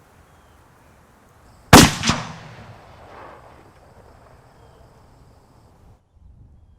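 Two sharp bangs about a third of a second apart, the first the louder, each trailing off in a long echo.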